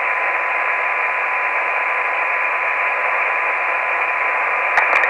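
Steady hiss from a Yaesu FT-817 receiver tuned to the HAMSAT VO-52 satellite downlink on 145.900 MHz, with no station transmitting. A faint steady tone runs through the hiss, and there are a couple of clicks near the end.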